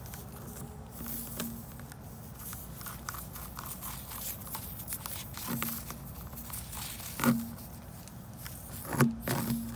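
Scattered small clicks and light knocks of tools and parts being handled during tire-plug repair work, with two sharper knocks near the end.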